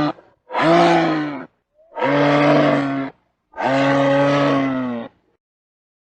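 An animal calling repeatedly: three long, low, steady-pitched calls of about a second each, with short pauses between them, just after the end of an earlier call.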